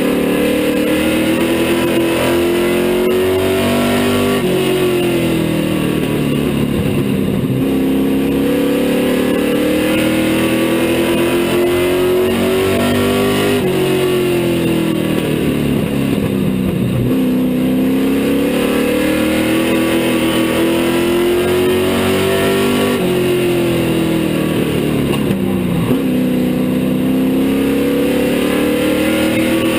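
Street stock race car's engine heard from inside the car at racing speed, its pitch climbing steadily along each straight and dropping sharply as the driver lifts for the turns, three times in a regular lap-by-lap cycle.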